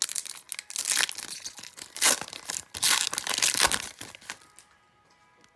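Foil wrapper of an Upper Deck hockey card pack being torn open by hand and crinkled, a run of sharp crackles that stops about four and a half seconds in.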